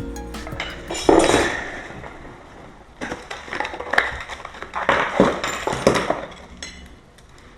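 Background music ends about half a second in. Then irregular scraping and sharp metallic clinks follow, from hand tools and lock parts being worked against the door edge.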